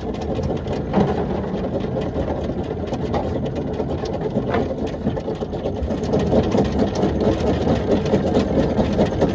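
Electric anchor windlass on a catamaran's bow running steadily, with a mechanical drone and rapid clicking as the rode feeds over it.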